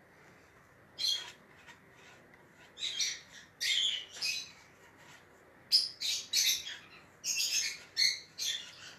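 Caged pet birds chirping: short, high-pitched calls that come in irregular clusters and grow busier in the second half.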